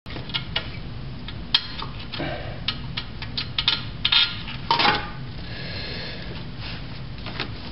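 Ratchet, extension and socket clicking and clinking irregularly against metal engine parts as a manifold fastener is turned by hand, with a few louder metallic knocks.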